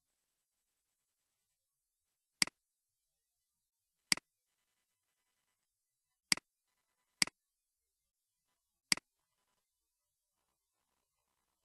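Five sharp computer mouse clicks, irregularly spaced over about six and a half seconds, with near silence between them.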